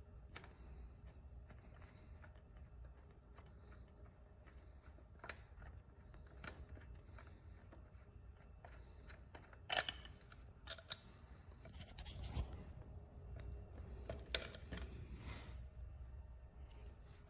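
Faint metallic clicks and scrapes of a hand turning out a bolt and handling carburetor hardware on a motorcycle engine, with a few sharper clinks about ten and fourteen seconds in.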